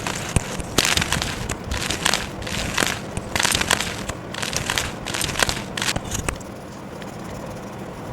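Chalk being crushed: a run of irregular crunching, crackling bursts that stops about six seconds in, leaving a steady low hiss.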